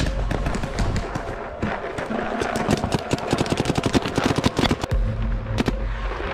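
Rapid shots from skirmish game guns, fired in fast irregular volleys that thicken to about eight to ten a second in the middle and stop about a second before the end, with background music underneath.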